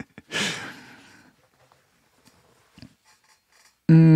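A man's long breathy sigh as a laugh dies away, fading out over about a second. Near the end he begins a steady, held voiced sound just before he starts speaking again.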